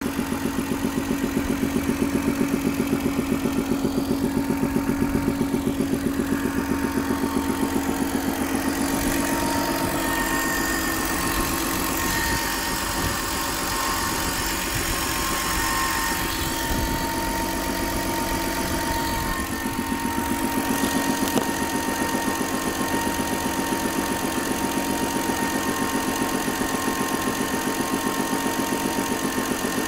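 BMW 330ci inline-six engine running at idle with an even, rhythmic knock that the owner suspects is piston or rod knock. About ten seconds in, a steady high whistle joins; the owner believes it comes from the belt tensioner.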